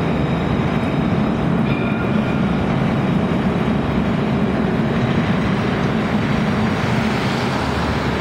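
Tram running along its rails: a steady low rumble of wheels and running gear, heard from inside a moving car, with a faint whine briefly about two seconds in.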